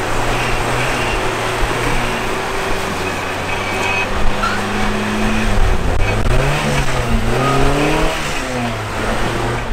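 Lifted Toyota 4Runner's engine running under load as it crawls over rocks, with the revs rising and falling a few times about six to eight seconds in.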